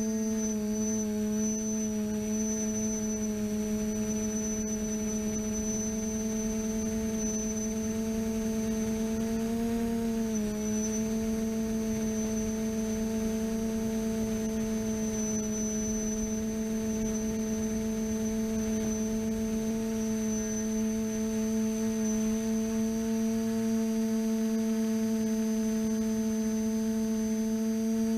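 TBS Discovery quadcopter's electric motors and propellers humming at a steady pitch with a faint high whine above it, the pitch wobbling briefly about ten seconds in.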